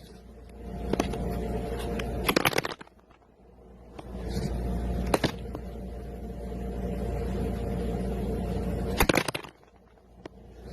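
A steady mechanical hum with a few sharp clicks and scrapes. The hum drops away twice, about three seconds in and again near the end.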